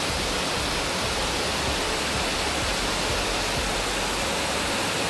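Heavy tropical downpour falling steadily, an even, unbroken hiss of rain.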